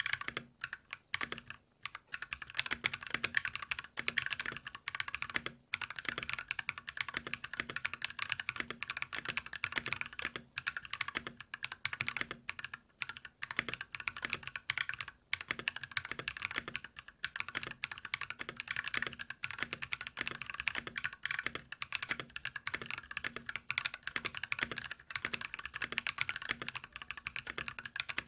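Continuous fast typing on a mechanical keyboard with stock Tecware Pearl Salmon tactile switches, in a 60% aluminium case with an aluminium plate: a steady stream of keystrokes with a few short pauses near the start.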